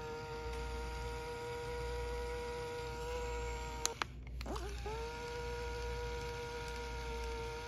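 Panasonic RQ-SX50 Walkman's tape-transport motor whining as it fast-winds the cassette: a steady hum that rises in pitch as it spins up, stops with a button click near four seconds in, and spins up again about half a second later.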